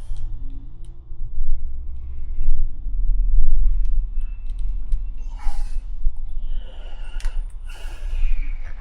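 Heavy, uneven low rumble, with small clicks and rustles from a motorcycle's turn-signal wiring connectors being worked together by hand in a tight space.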